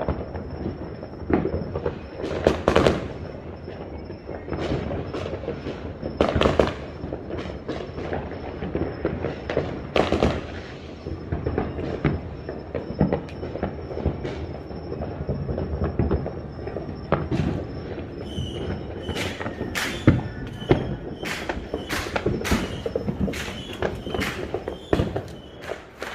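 Fireworks and firecrackers going off all around: a continuous crackle with many sharp bangs, coming thicker and faster in the last several seconds.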